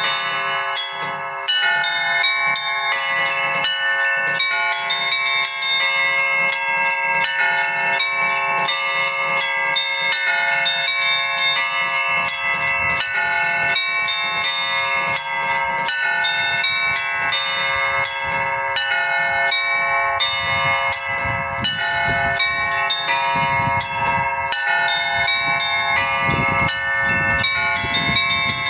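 Orthodox monastery bells rung by an electromechanical belfry: several bells struck in quick, continuous succession, their tones overlapping and ringing on.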